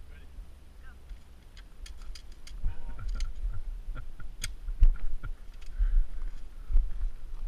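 Footsteps crunching on gravel: a run of sharp irregular crunches and clicks, then dull thumps about once a second.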